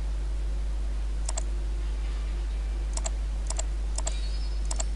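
Computer mouse button clicked five times, each a quick press-and-release double tick, over a steady low hum.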